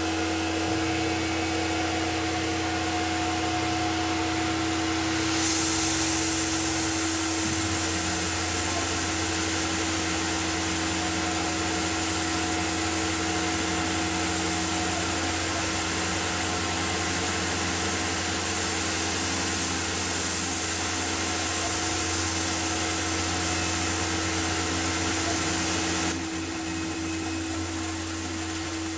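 Tormach PCNC 1100 CNC mill running its spindle with a steady whine. About five seconds in, a loud, even hiss of coolant spray from the nozzle aimed at the cutter starts; it cuts off suddenly near the end.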